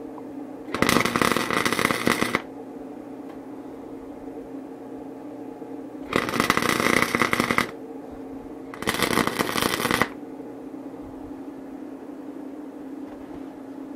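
A 90-amp flux-wire MIG welder laying three short welds on stainless steel rod, each a dense crackling sizzle of one to two seconds, the last two close together near the middle. A steady hum runs underneath.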